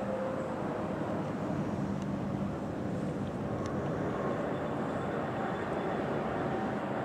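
Steady low background rumble with a faint hum, and a few faint clicks.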